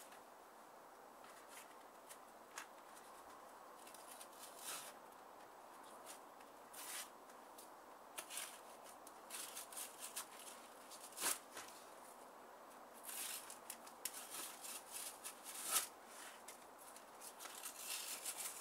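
Thin cardboard packaging torn and peeled by hand in short, irregular rips and crinkles, with a sharper rip about eleven seconds in and another near sixteen.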